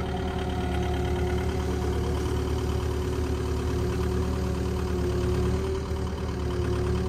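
Kubota KX080-4 excavator's diesel engine running steadily while its bucket digs into the ground, with a steady whine over the engine note.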